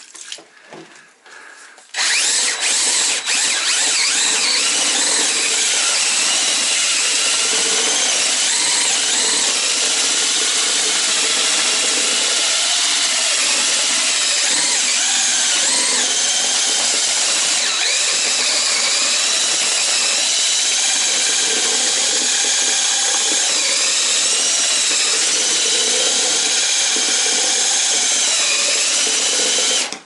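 DeWalt cordless drill spinning a paddle mixer through self-leveling floor underlayment in a plastic bucket, with a steady motor whine. It starts about two seconds in and runs unbroken until it cuts off near the end.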